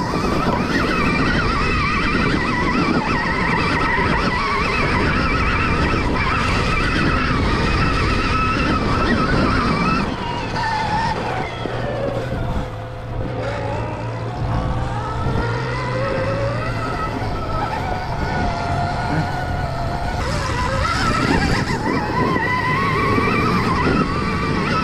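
Stark Varg electric dirt bike's motor whining as it is ridden, its pitch rising and falling with throttle and speed, over a steady rush of noise. About ten seconds in the whine drops low as the bike slows, then climbs back up.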